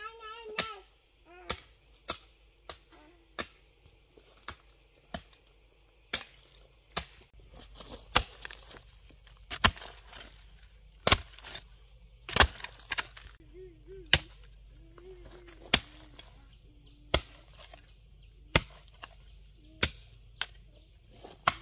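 A hand hoe chopping down into soil in repeated single strokes. The strokes come quickly at first, then settle to about one every second and a half.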